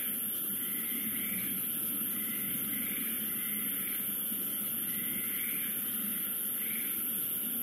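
Night insect chorus: a steady high, even hiss with a soft chirp repeating about once a second, over a low background hum.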